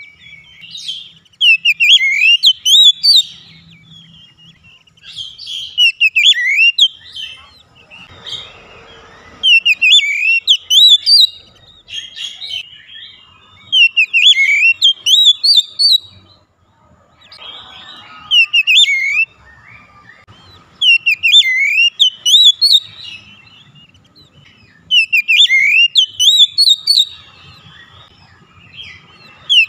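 Oriental magpie-robin (kacer) song: loud whistled phrases of quickly rising and falling notes, coming in bursts about every four seconds. This is the kind of lure song played to get a reluctant kacer to start singing.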